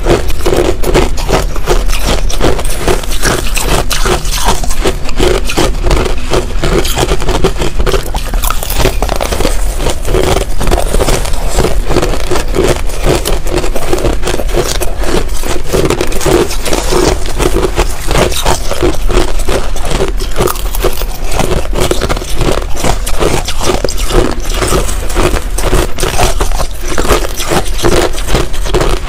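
Finely crushed ice being chewed close to a lapel microphone: a dense, continuous run of rapid crisp crunches.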